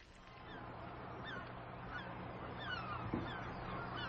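Gulls calling over and over, a series of short falling cries, over a low steady hum.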